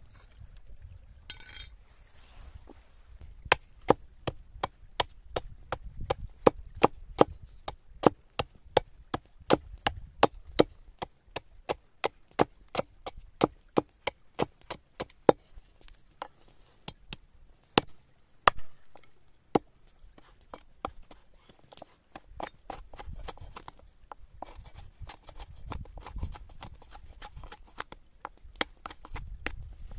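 A large knife chopping into a stick of wood braced on a log, with sharp wooden knocks about two or three a second. In the last several seconds it gives way to softer shaving strokes as the blade whittles the stick.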